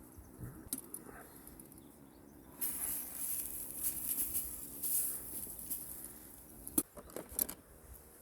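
Campfire crackling, with a hissing stretch in the middle and a few sharp pops near the end.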